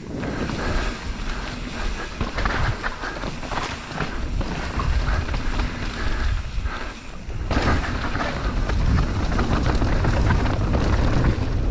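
Mountain bike descending a wet dirt trail, heard from a helmet camera: wind buffeting the microphone as a steady low rumble, with tyre noise and the chatter and rattle of the bike over the rough ground. It grows louder and rougher about seven and a half seconds in.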